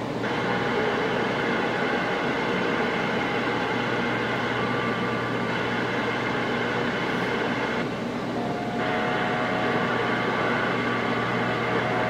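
Galaxy CB radio receiving a crowded AM channel: a steady hiss of static laced with several faint steady whistles from overlapping carriers. A new, lower whistle comes in about nine seconds in.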